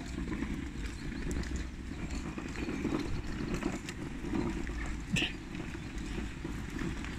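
Footsteps walking on grass, with wind rumbling on the phone's microphone and a brief sharp sound about five seconds in.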